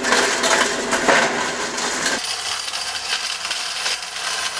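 7.5 hp hammer mill grinding babaçu coconut: the hard nut pieces make a dense, fast rattling clatter against the hammers over the running machine. About two seconds in the deeper part of the sound falls away while the clatter goes on.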